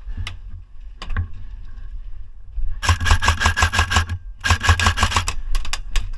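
AK-style airsoft rifle firing two full-auto bursts: a rapid, even stream of shots with a steady whine under it. The first burst starts about three seconds in and runs over a second, and a shorter one follows just after. A couple of light knocks come before them.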